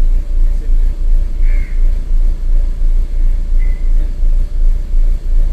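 Renault Duster engine idling roughly with a misfire, its low rumble rising and falling unevenly about twice a second. The scan tool blames the misfire on an internal electrical fault in the engine control module.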